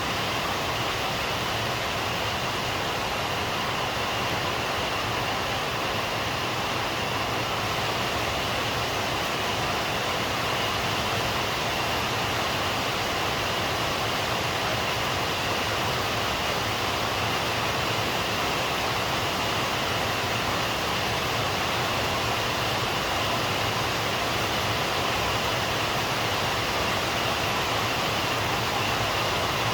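Rain falling steadily: an even hiss that does not change, with no thunder.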